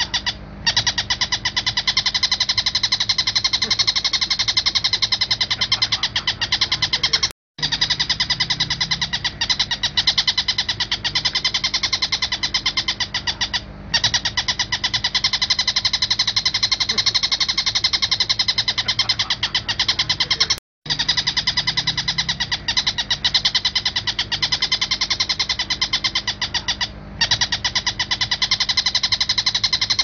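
Oriental dollarbird (tengkek buto) calling in long runs of fast repeated chattering notes, broken by brief pauses about every six to seven seconds.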